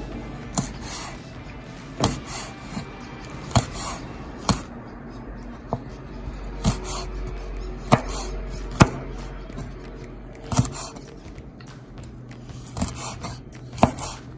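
Irregular sharp knocks of kitchen utensils, roughly one a second, over background music.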